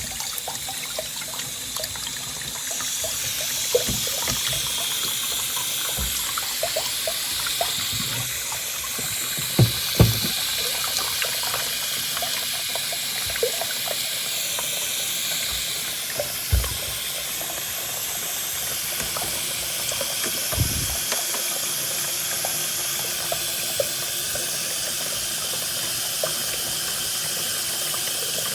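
Steady rush of running water, with a few short light knocks.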